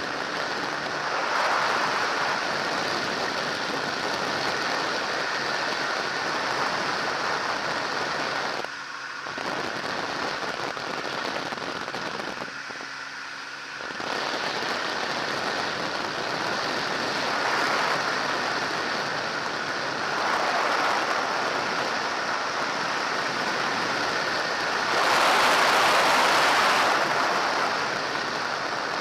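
Ultralight trike in flight: airflow buffeting the microphone in the open cockpit as a steady, loud rush, with the engine droning faintly underneath. The rush briefly drops around 9 and 13 seconds in, letting the engine show through, and swells near the end.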